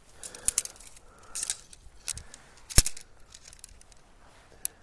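Shock-corded tent pole sections clacking together as the pole is unfolded and assembled. A few sharp clicks, the loudest about three seconds in, with light rattling and rustling between.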